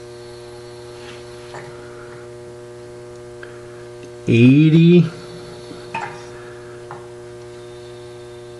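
Steady electrical mains hum with a stack of even overtones, under a few faint clicks, broken about four seconds in by a short spoken count.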